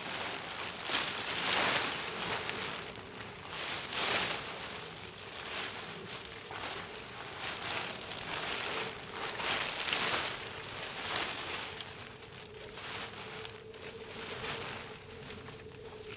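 Irregular rustling and scuffing, a string of short swishes spread throughout, with a faint steady hum coming in during the second half.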